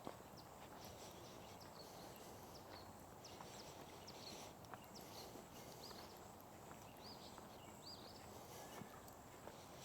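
Near silence outdoors: faint footsteps in sand, with many short, faint high chirps scattered throughout.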